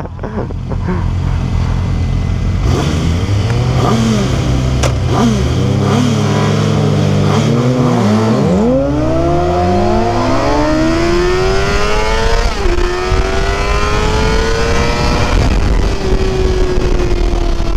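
Two sportbike engines revving hard at a standstill, pitch swooping up and down, then a Suzuki sportbike launching and accelerating: its engine note climbs steadily and drops suddenly at a gear change about twelve and a half seconds in, then climbs again and levels off.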